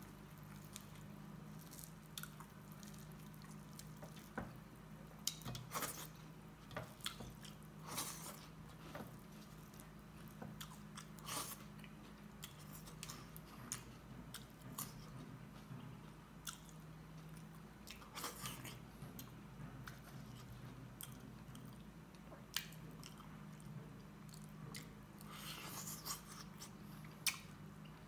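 Close-miked eating by hand from a steel plate: chewing and biting, with scattered wet smacks and short crunchy clicks. A faint steady low hum sits underneath.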